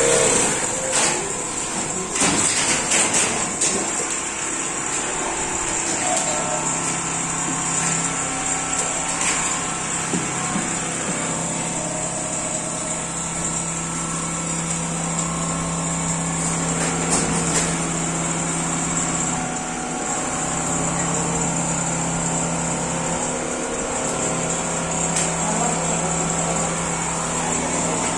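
Richpeace computerized single-head quilting machines running together: a steady motor hum and a high whine under the rattle of the stitching heads.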